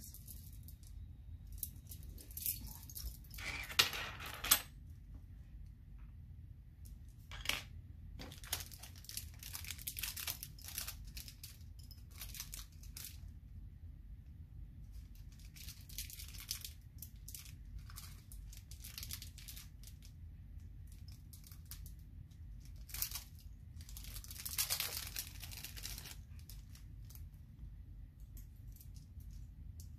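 Small handling sounds of bracelet-making: beaded bracelets and small metal charms picked up and sorted, giving scattered rustling, crinkling and light clicks in irregular clusters, over a steady low hum.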